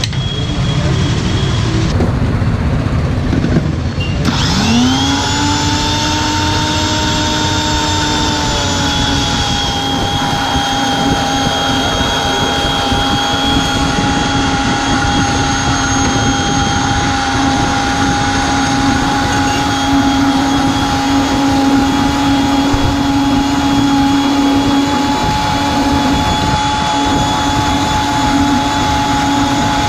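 Electric countertop blender motor starting about four seconds in, its whine rising quickly to speed. It settles to a slightly lower pitch a few seconds later and then runs steadily, blending pomegranate and ice into juice.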